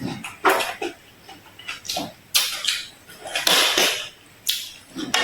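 Close-miked eating sounds: repeated bites and crunchy, wet chewing of food in short bursts, with clinks of a utensil against a dish.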